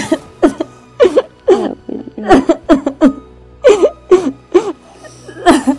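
A woman sobbing hard: a quick run of short, wavering cries and catching breaths, about two a second.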